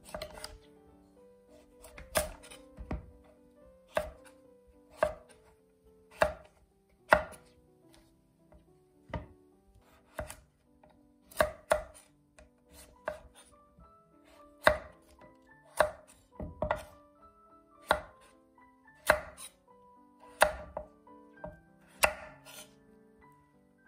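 Chef's knife cutting through kabocha squash rind and flesh and striking a wooden cutting board: sharp knocks about once a second, unevenly spaced.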